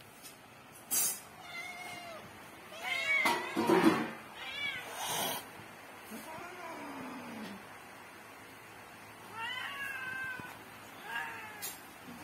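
Domestic cats meowing repeatedly, a run of drawn-out calls, one sliding down in pitch, with a lull in the middle before a few more meows. A sharp click comes about a second in.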